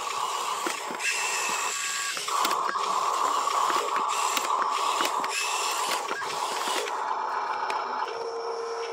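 Huina RC dump truck's small electric tipper motor and gearbox whirring steadily as the dump bed is raised, with scattered clicks and a brief dip about two seconds in.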